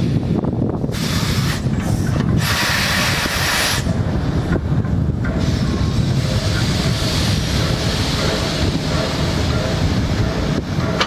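Steam locomotive moving slowly while shunting: steam hissing from its open cylinder drain cocks, loudest about two to four seconds in, over the steady rumble of the locomotives rolling on the rails.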